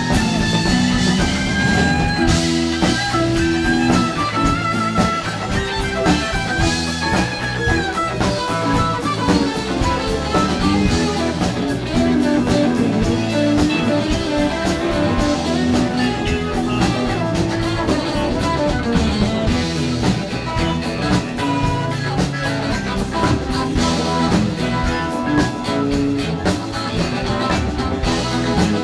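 Live rock band playing: electric guitars lead over a drum kit and keyboard, with a steady beat.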